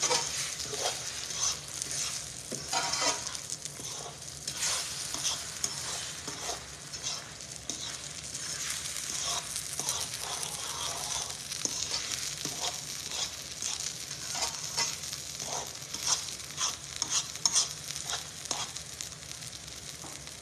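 Egg sauce of beaten eggs, onions, tomatoes and peppers sizzling in a frying pan as a metal fork stirs and scrapes it, with irregular clicks of the fork against the pan over a steady frying hiss.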